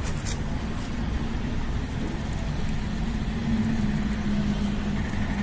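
Steady low rumble of a motor vehicle engine running, with a steady droning tone coming in about two seconds in.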